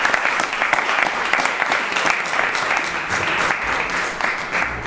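Applause from many people, a dense run of hand claps that greets a speaker who has just finished and thins out near the end.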